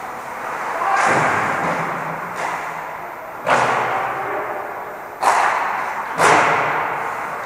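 Ice hockey play in an indoor rink: four sharp knocks, about one, three and a half, five and six seconds in, each echoing off the arena walls.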